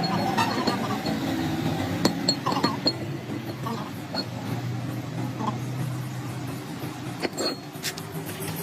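Light metallic clinks and a few sharp knocks, as of metal tools or parts being handled, over a steady low hum.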